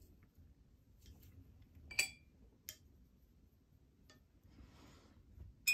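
A few light clicks and taps of a paintbrush on a palette while more watercolour is mixed, the clearest about two seconds in with a short ring, and a soft scrubbing of the brush a little before the end.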